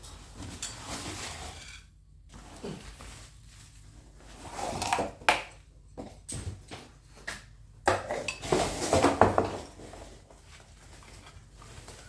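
Packaging being handled during a guitar unboxing: bursts of rustling with sharp clicks and knocks, loudest about four to five seconds in and again about eight to nine and a half seconds in.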